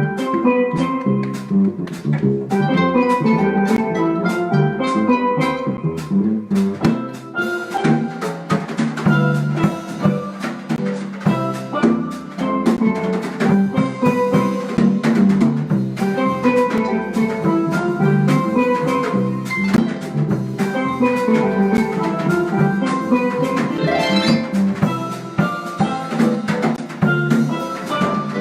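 Live Brazilian jazz from a small band: a harp plucking a busy run of notes over drums and percussion.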